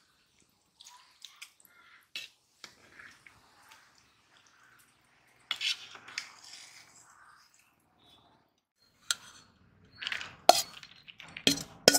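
Metal ladle stirring biryani in a large metal pot, clinking and scraping against the pot's sides in scattered strokes, with louder clanks near the end.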